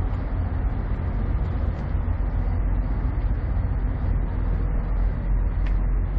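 Diesel semi-truck engine idling: a steady low rumble.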